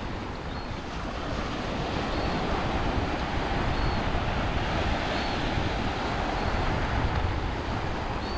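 Small waves washing and breaking over a rocky shore, a steady surf wash, with wind buffeting the microphone.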